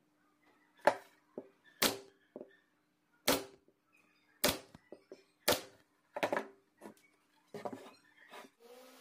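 Pneumatic nail gun firing nails into pallet-wood boards: a run of single sharp shots, roughly one a second, each followed by a short ring.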